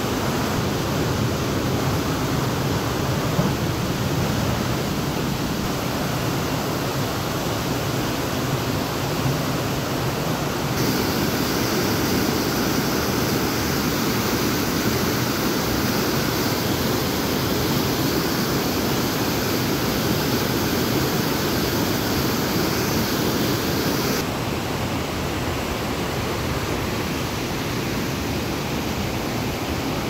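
Steady rush of water from a waterfall pouring over rocks. Its sound changes abruptly about 11 seconds in, becoming brighter and fuller, and drops back about 24 seconds in.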